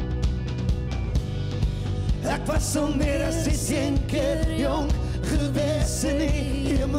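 A live rock band plays a song in Afrikaans on electric guitars and drums with a steady beat. About two seconds in, a man and a woman start singing together in parallel.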